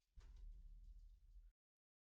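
Near silence: faint low room tone that cuts off to dead silence about one and a half seconds in.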